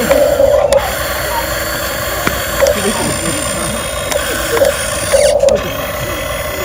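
Small electric motors of a remote-control toy excavator whining steadily as it works, the whine swelling in short stretches, with a few light clicks.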